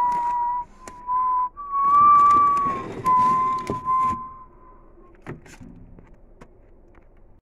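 A person whistling a slow tune in long held notes, which stops about four seconds in. A few light knocks and clicks follow.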